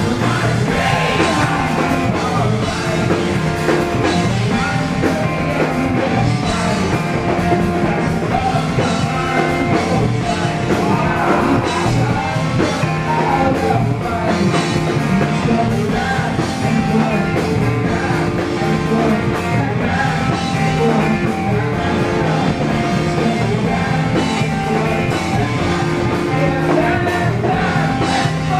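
A rock band playing live at full volume: electric guitars, bass and drums, with a singer's voice over them.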